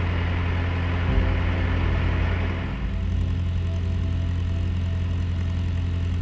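Narrowboat engine running steadily with a low, even drone, and a brief thump about a second in.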